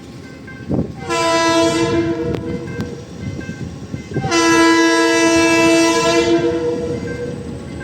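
Air horn of TCDD diesel locomotive DE 33082 sounding two long, loud blasts, the second starting right after the first ends. A short knock comes just before the first blast.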